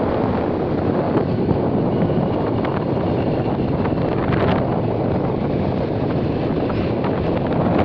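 Steady wind rush on a phone microphone while riding along a road, over the low, even rumble of the moving vehicle.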